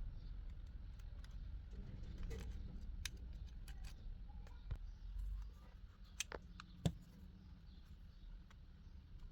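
Scattered sharp clicks and taps, a few loud ones about six and seven seconds in, over a low steady hum.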